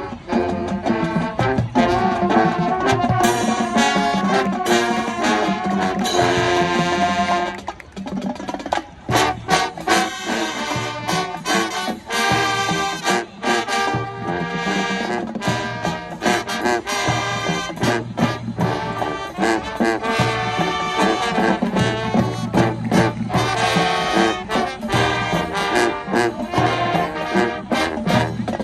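High school marching band playing, led by trombones and trumpets. Loud held brass chords break off about seven seconds in, and the band moves into a rhythmic, drum-driven passage with punchy brass accents.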